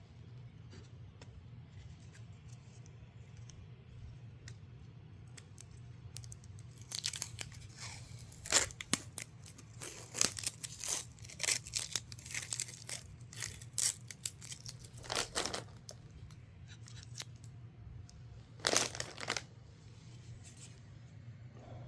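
Packaging wrap being torn and crinkled off a graphics card by hand: irregular rustling and tearing starting about six seconds in and carrying on for about ten seconds, with one more burst near the end.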